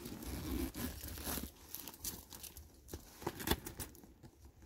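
Quilted leather tote bag being handled at its zip pocket: soft rustling and crinkling with scattered small clicks, the sharpest about three and a half seconds in.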